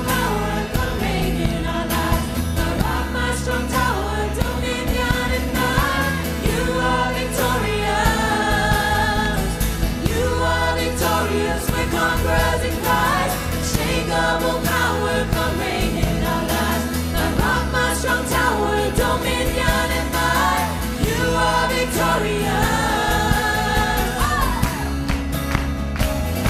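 A live worship band playing: several voices singing together over acoustic guitar, bass guitar, keyboard and drums, with a steady beat.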